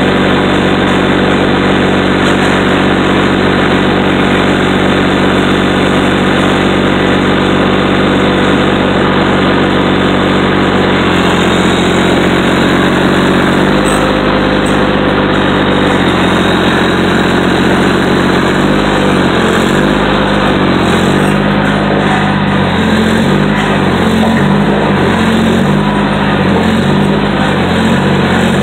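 Heavy equipment's diesel engine running steadily, then shifting pitch a few times and, over the last ten seconds or so, dipping and rising again and again as it works under changing load.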